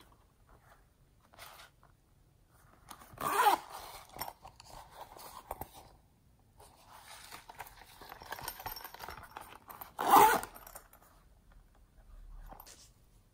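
Zipper on a silicone zip pouch being pulled, with two loud rasping pulls about three seconds and ten seconds in, and softer rasping and handling of the pouch between them.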